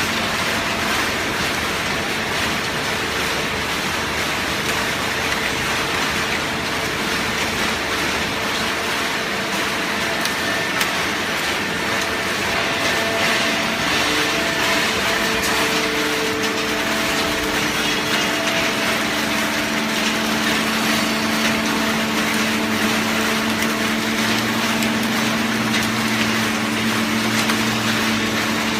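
Industrial cardboard shredder and baling machinery running: a steady mechanical din of cutting and blowing with motor hum, the hum tones shifting and growing stronger partway through.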